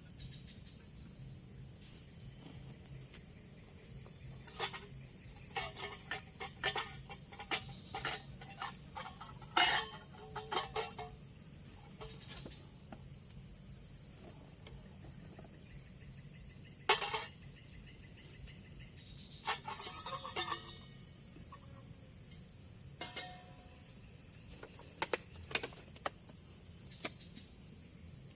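Steady high-pitched drone of forest insects, with clusters of short, sharp sounds that come and go every few seconds.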